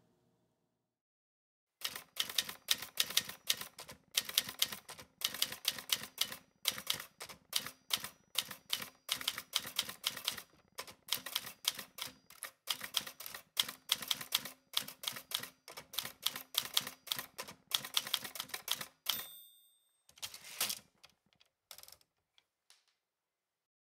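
Typewriter keys clacking in quick runs of strokes, starting about two seconds in; near the end a bell dings once, followed by a short clatter and a few last key strikes.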